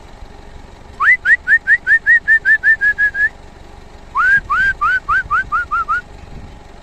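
A person whistling to call birds: two quick runs of short, rising whistled notes, about five a second, the first run of about a dozen notes and the second, after a pause, of about eight.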